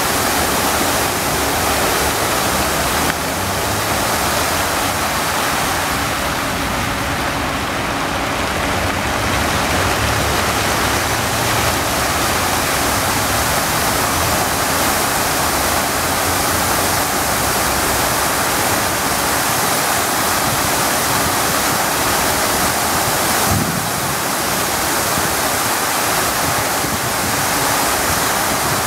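Cascade fountain's water jets rushing and splashing down into the basin: a steady, dense rush of falling water.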